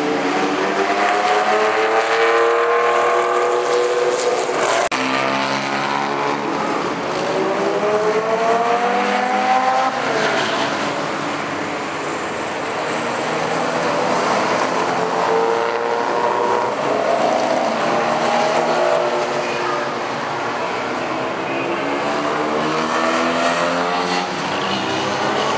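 Several classic sports car engines accelerating past on a race circuit, one car after another, the engine pitch climbing again and again as each car pulls away.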